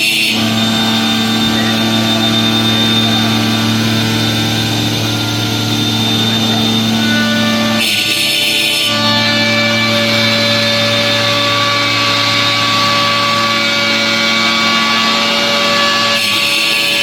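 Multi-head CNC stone cutting machine running with a steady mechanical hum of several tones. About every eight seconds, near the middle and again near the end, the hum briefly gives way to a hiss lasting about a second.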